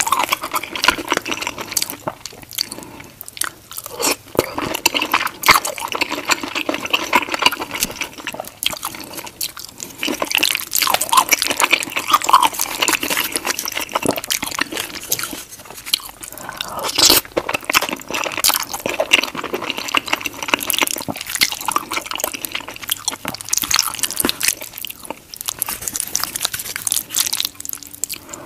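Close-miked wet chewing and slurping of creamy white-sauce pasta, with dense, irregular sticky mouth clicks and smacks.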